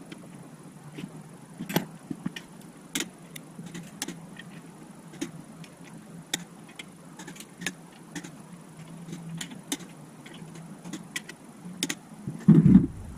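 Hand tools working on the bottom end of a 350 V8 short block: scattered sharp metallic clicks and clinks of a wrench on bolts and metal, over a low steady hum, with a heavier metal clunk near the end.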